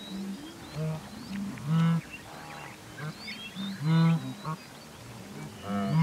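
A herd of blue wildebeest calling: repeated short calls from several animals overlapping, with the loudest about two, four and six seconds in. Larks and other birds chirp faintly above them.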